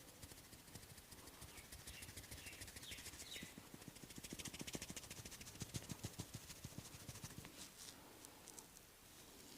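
Hands working through hair and over the scalp in a barber's head massage: a dense run of fast, soft crackling clicks that grows loudest around the middle, then thins out.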